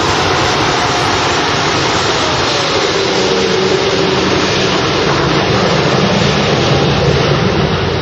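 Jet engines of a Boeing 747-8 running loud and steady, with a faint tone that glides downward a few seconds in.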